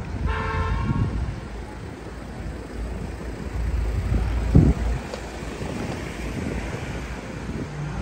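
A car horn sounds once, a short beep about half a second long, near the start. A low steady street-traffic rumble runs underneath, with one dull thump near the middle.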